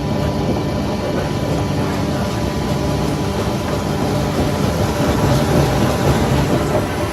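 Heavy machinery running steadily at a constant pitch.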